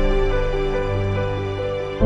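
Slow, soft background music: sustained notes with a gentle melody over a held bass, fading a little toward the end.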